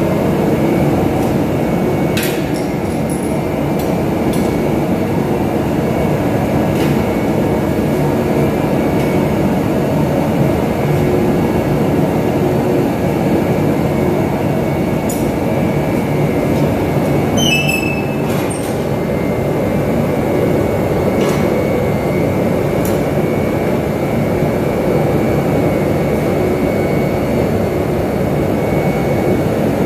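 Forge running with a steady, loud roar and a faint high whine, with a few light metallic clicks and a brief high squeak about 18 seconds in.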